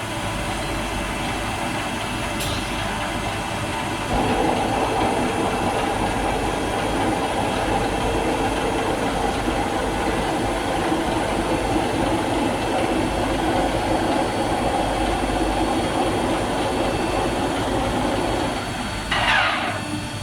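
WOTAN Rapid 2R/12,5 CNC table-type drilling and milling machine running: a steady mechanical noise that gets louder about four seconds in as another drive starts, then drops back near the end with a short rising whine.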